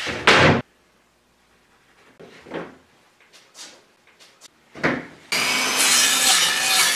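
A loud wooden knock as a strip of wood is set down on a plywood sheet, then a few light taps and clicks. About five seconds in, a battery-powered circular saw starts abruptly and runs steadily, cutting through the plywood.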